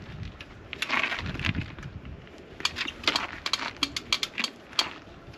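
Hityway BK6 folding eBike being folded: metal clicks and clanks of the handlebar stem and frame latches, with a scraping rustle about a second in and a quick run of sharp clicks later on.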